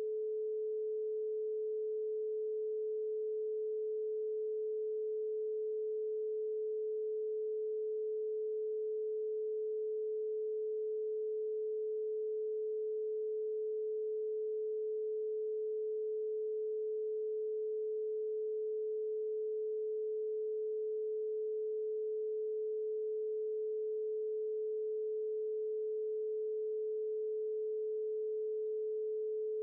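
Synthesized pure sine tone a little below 500 Hz, held steady and unchanging, as played in a brainwave-entrainment tone track.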